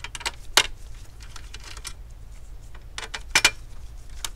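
Scattered small clicks and taps of a screwdriver and loose screws as the three screws holding a CPU fan are taken out. The sharpest knock comes about half a second in and a close pair near three and a half seconds.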